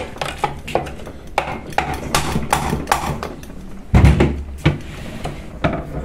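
Metal-on-metal tapping as a mallet drives a screwdriver against the back of a centrifugal water pump's electric motor: irregular sharp taps, roughly two a second, with one heavier thud about four seconds in. The blows are working the motor's rear housing loose.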